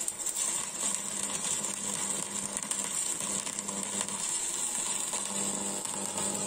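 Stick-welding arc from a Global Power Mini 200 inverter welder set to full current, a 3.15 mm electrode burning on steel with a steady crackle. The arc strikes right at the start and keeps burning evenly.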